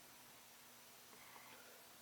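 Near silence: room tone with a faint steady hum and a few tiny faint ticks.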